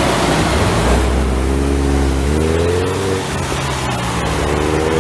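Heavy road traffic passing close by: a car-transporter lorry and cars, with a deep engine rumble and engines accelerating, one rising in pitch a little over two seconds in and another engine note coming up near the end.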